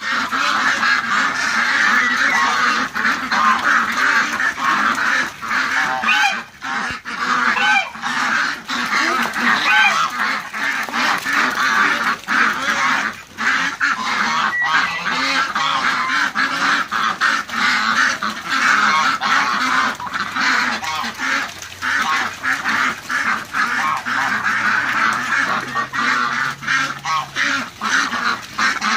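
A large flock of domestic ducks quacking continuously, many overlapping calls at once.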